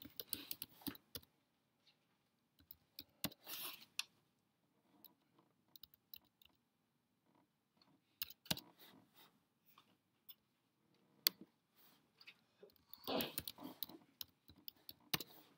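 Faint, scattered clicks of typing on a computer keyboard, with a short quick flurry of keystrokes about three and a half seconds in and another near the end.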